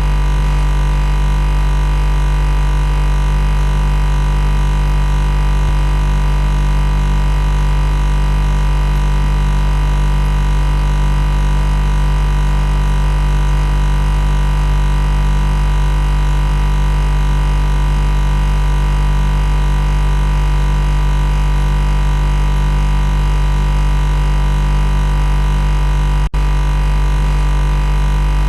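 Loud, steady electrical machine buzz: a constant low hum with a dense stack of harsh overtones, unchanging in pitch, with a split-second break about 26 seconds in.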